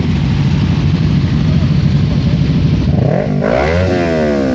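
A vehicle engine running with a steady rumble, then revved about three seconds in, its pitch climbing sharply and sliding back down as the throttle is released.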